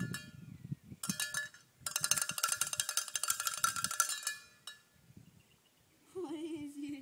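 Cowbell worn on a dog's collar clanking rapidly as the dog moves: a short spell about a second in, then a longer run of fast clanks from about two to four and a half seconds in.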